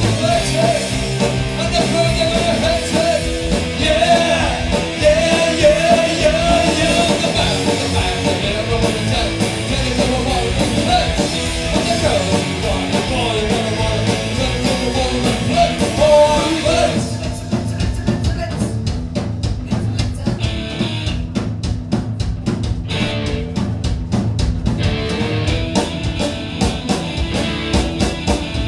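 Live rock band playing loud and amplified, with electric guitars, bass and drums under a sung lead vocal. The singing stops about halfway through and the band goes on with an instrumental passage.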